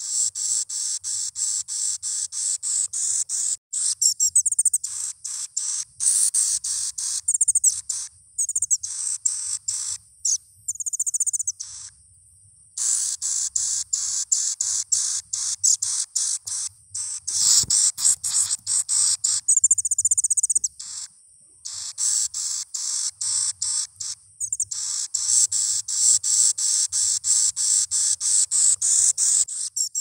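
Lure-call recording of an aprol bird: a rapid series of high, thin chirping notes, several a second, in runs several seconds long broken by short pauses.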